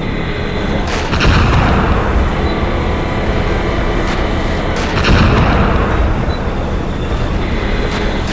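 Tank main-gun firing sound effects, two loud cannon booms about four seconds apart, each trailing off in a rumble. Under them runs a steady tank-engine rumble.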